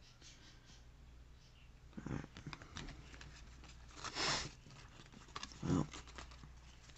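Pokémon trading cards handled in the hands: cards sliding and tapping against each other as a pack's worth is gathered into a stack, a few short rustles with small clicks between, the loudest about four seconds in.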